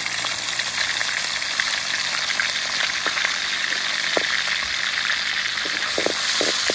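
Chopped garlic sizzling steadily in hot oil in a metal wok, being fried until golden. A metal spatula scrapes and knocks against the wok a few times, more often near the end.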